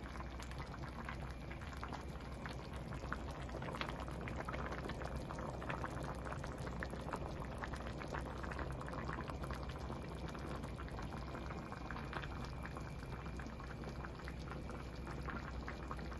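A pot of chicken pelau (rice and pigeon peas in coconut milk and water) bubbling steadily as it cooks down, with many small pops and crackles.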